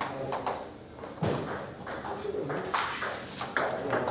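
Table tennis ball clicking off rackets and the table: a handful of separate sharp hits with gaps of up to a second and a half, coming closer together near the end.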